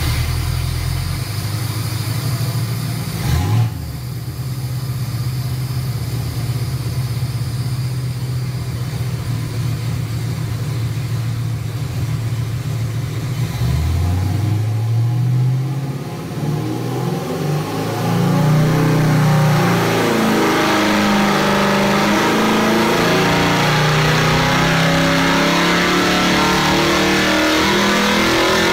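Chevy 383 stroker small-block V8 with MSD Atomic fuel injection running on an engine dyno: steady running with a quick blip of the throttle about three seconds in, a rev up about halfway, then a long dyno pull under load from about two-thirds of the way in, its pitch climbing steadily as the revs rise.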